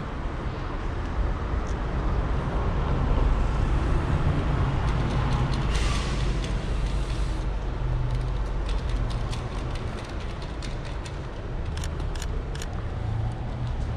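City street traffic noise: a steady low rumble with a brief rushing hiss about six seconds in, and light clicks scattered through the second half.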